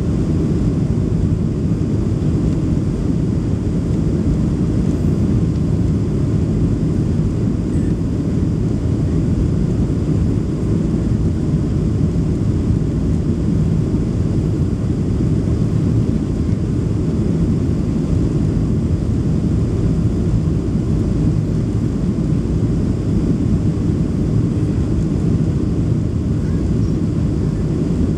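Steady low cabin rumble of a Boeing 737 Next Generation jet airliner in flight, engine and airflow noise heard from a window seat inside the cabin, as the aircraft descends toward landing.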